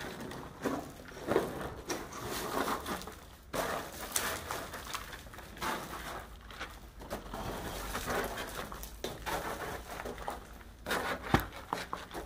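Irregular crunching footsteps on loose broken concrete and brick rubble as someone climbs a debris-strewn concrete stairway, the steps scuffing and grinding grit.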